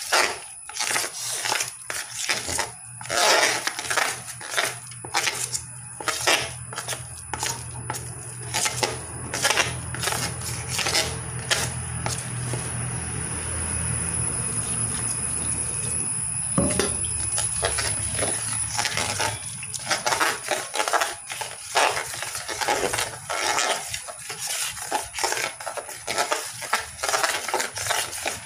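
Metal spoon scraping and clinking against a stainless-steel vessel in irregular strokes while stirring thick pickle paste. A low hum swells in the middle and fades out.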